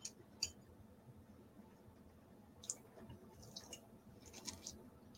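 Faint, scattered clicks and small mouth sounds from eating thick, chewy noodles, near silence in between.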